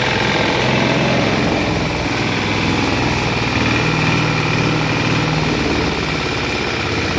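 Dacron fibre grinding machine running steadily, its motor and rotor giving a constant hum with a few steady tones over a broad mechanical noise.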